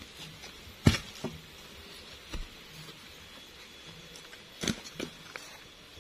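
A few sharp snaps and knocks, the loudest about a second in and another near the five-second mark, over faint rustling, from footsteps on grass strewn with dry sticks and a cut log section being gripped and heaved up.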